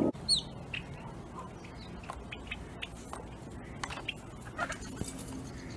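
Mixed feeder birds calling, yellow-headed blackbirds among them with small sparrows or finches: scattered short chips and chirps. The loudest is a quick falling whistled note just after the start.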